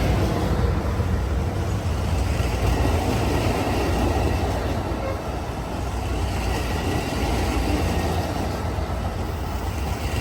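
Amtrak California Zephyr passenger train rolling past, a steady low rumble with rail noise.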